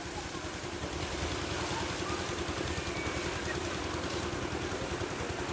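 An engine running steadily with an even hum.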